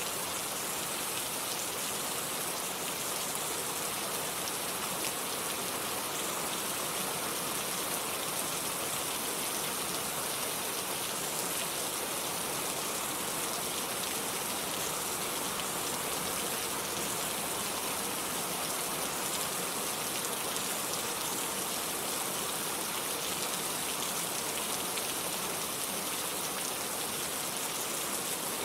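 Steady white noise: an even, unchanging hiss with no rhythm or breaks, brightest in the high treble.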